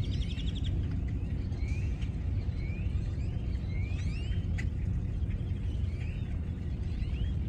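Birds chirping: repeated short rising calls, with a quick rapid trill about half a second in, over a steady low rumble.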